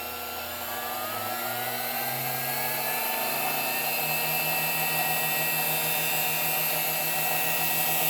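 Servo 7060 variable-speed benchtop drill press running, its motor hum and whine rising in pitch over the first few seconds as it speeds up from a low setting, then holding steady at the higher speed.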